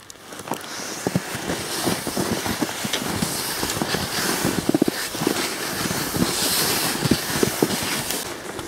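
Skis and boots crunching and swishing through deep snow, with jacket fabric rustling close to the microphone: a steady hiss with irregular soft knocks.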